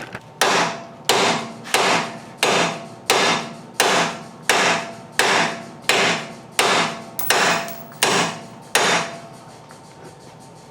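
About a dozen steady hammer blows on steel, one roughly every 0.7 s, each ringing briefly. They are driving a worn lower ball joint out of a Nissan 350Z's lower control arm.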